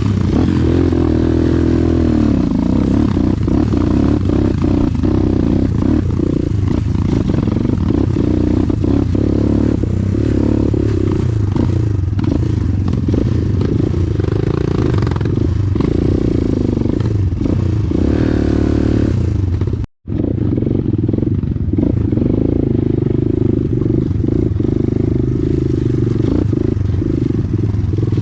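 Motorcycle engine running while riding off-road, its pitch rising and falling with the throttle, with clattering and rattling knocks over rough ground. The sound drops out for a moment about twenty seconds in.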